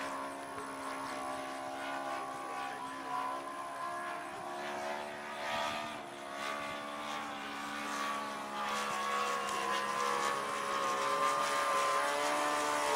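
Engine of a radio-controlled Grumman F6F Hellcat scale model airplane running in flight, a steady buzzing note whose pitch wanders slightly and which grows louder over the last few seconds.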